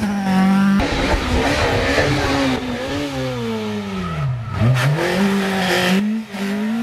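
Rally car engine at high revs, slowing for a tight bend and then accelerating out. The pitch falls steadily to its lowest about four and a half seconds in, then climbs again, with a short break a little after six seconds, likely a gear change. The car is a Peugeot 306 rally car.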